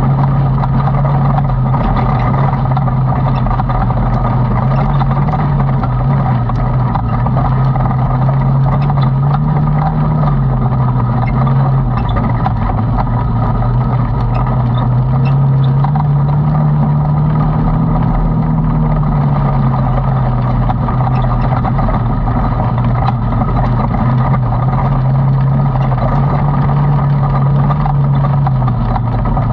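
Side-by-side UTV engine running steadily under way on a dirt trail, heard from inside the open cab, its pitch rising and falling gently a few times with the throttle. Occasional small ticks and rattles.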